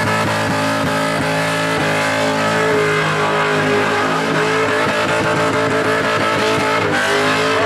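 Car engine held at high, steady revs during a burnout, over a broad hiss of spinning tyres.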